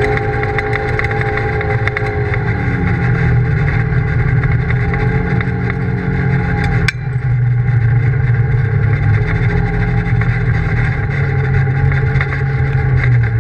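Polaris RZR side-by-side's engine running steadily at speed, heard from inside the cab, its pitch dropping about two seconds in. A single sharp knock near the middle, with the sound briefly dipping after it.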